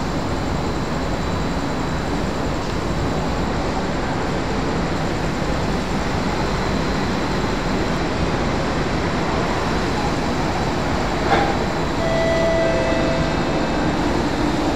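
Singapore MRT train approaching an elevated station: a steady rumble along the track that grows slightly louder towards the end, with a single click and a brief steady tone shortly after.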